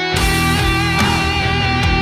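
Background rock music with distorted electric guitar and drums.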